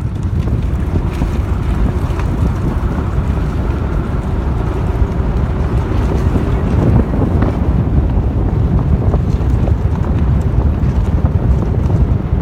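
Steady wind buffeting the microphone as it is held out of a moving car's window, with the car's running rumble underneath.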